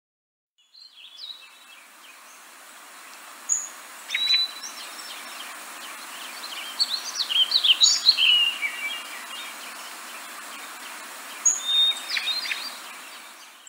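Outdoor ambience sound effect: a steady background hiss with birds chirping and twittering over it, the calls thickest around the middle. It fades in just after the start and dies away at the end.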